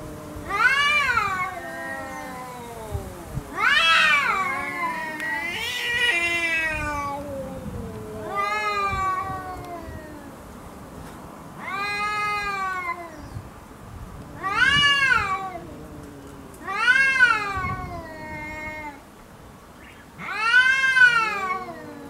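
Two domestic cats yowling at each other in a standoff before a fight: about eight drawn-out, rising-and-falling wails a couple of seconds apart, with low growling in between. These are threat calls.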